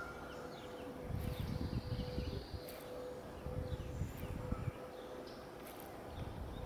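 Outdoor ambience: a steady faint hum, with short bird chirps scattered through it and irregular low rumbles from about one to five seconds in.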